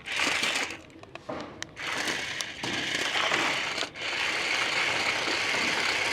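Small electric drive motors and plastic gearboxes of a toy RC stunt car whirring as it drives and spins, cutting out briefly a few times as the controls are let go.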